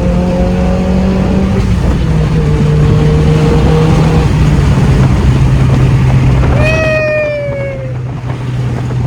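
Car engine running hard, heard from inside the car, its drone slowly dropping in pitch. About two-thirds of the way through comes a brief high squeal that falls in pitch.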